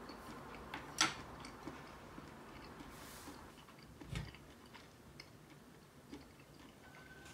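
Chopsticks set down on a chopstick rest with a sharp click about a second in, then a dull knock on the table around four seconds, with faint scattered ticks of tableware between.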